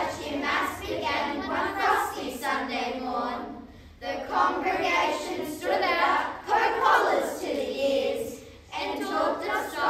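A class of children speaking a poem together in unison (choral speech), with two brief pauses between phrases, about a third of the way in and near the end.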